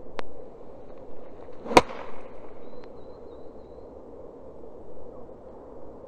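A 7-iron striking a golf ball on a low punch shot: one sharp crack a little under two seconds in.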